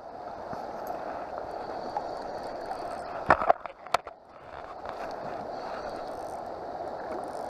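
Shallow river riffle running over rocks, a steady rushing of water. A few sharp knocks stand out above it about three and a half seconds in.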